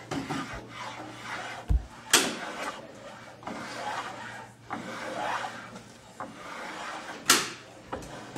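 Hand plane shaving the edge of a cedar strip plank in a series of short strokes, about one a second, with two sharp knocks of wood or tool. The edge is being planed down a little at a time to match the hull's line.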